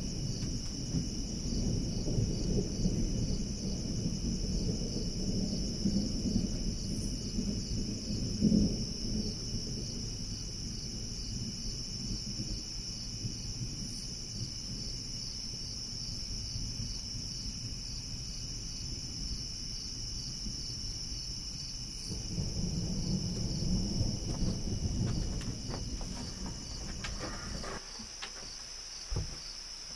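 Distant thunder rumbling in two long rolls, one through the first third and another about two-thirds of the way through, over a steady high-pitched insect chorus that runs on throughout.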